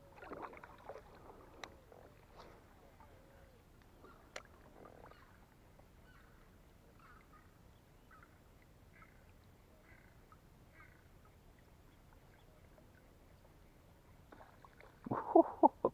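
Quiet open water with faint scattered small sounds. About a second before the end comes a sudden loud burst: a traíra striking the surface lure with a splash, mixed with a short shouted cry.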